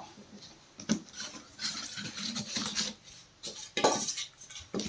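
Cardboard box and styrofoam packing blocks being handled as an inverter UPS is unpacked: light rustling and scraping with a few short knocks, one about a second in and two near the end.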